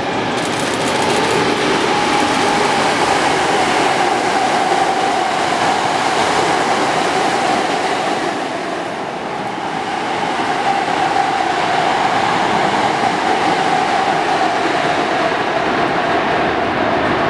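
Hankyu 7000-series 'Kyo-train Garaku' electric train running past on the tracks: a continuous loud rumble of wheels on rail with a sustained whine over it. There is a quick run of clicks near the start, and the sound eases briefly about nine seconds in before rising again.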